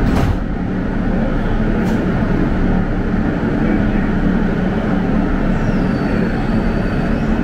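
R160 subway car pulling out of a station: a steady rumble of wheels on rail and car running, with a sharp knock at the start and another about two seconds in. From about five and a half seconds in, a high electric traction-motor whine slides down and then holds steady as the train gathers speed.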